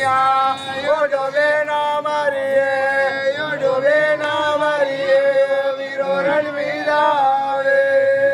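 Male voices singing a Gavri folk chant in long, held notes that bend and waver in pitch.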